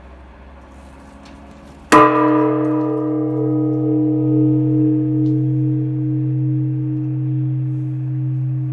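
Japanese Buddhist temple bell (bonshō) struck once about two seconds in, then ringing on in a long, deep hum that fades slowly and wavers in loudness.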